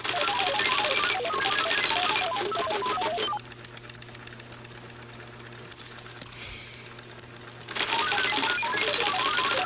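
Teleprinter-style computer terminal clattering, its rapid typing clicks mixed with quick high electronic beeps at jumping pitches. It runs for about three and a half seconds, drops away to a low hum, then starts clattering and beeping again near the end.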